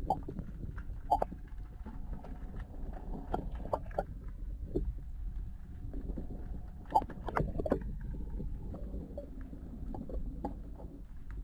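Low, muffled water rumble with scattered sharp clicks and knocks, as picked up by a camera held in the sea on a bamboo pole. A faint steady tone runs under it for the first several seconds.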